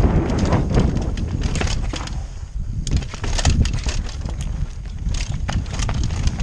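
Downhill mountain bike riding over a rocky dirt trail, heard from a helmet camera: a steady low wind rumble on the microphone with rapid rattling clicks and knocks from the bike and tyres over stones and roots. It eases off briefly about two and a half seconds in.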